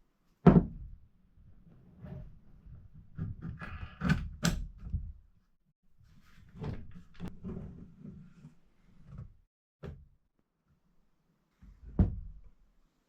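Scattered knocks and clunks of objects being handled, the loudest about half a second in and another near the end, with a short scraping rub around four seconds in.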